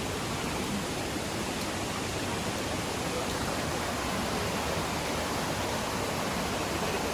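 Steady rushing of the Dudhsagar waterfall, an even wash of falling water with no break.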